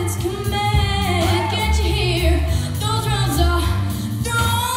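A girl singing a jazz standard into a microphone over instrumental accompaniment, her held notes wavering with vibrato above low bass notes that step from one pitch to the next.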